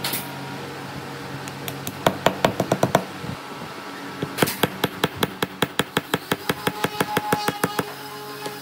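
Hammer tapping wooden pegs into glued holes in an old timber beam: a short run of quick blows about two seconds in, then a longer even run of about five blows a second from about four and a half seconds.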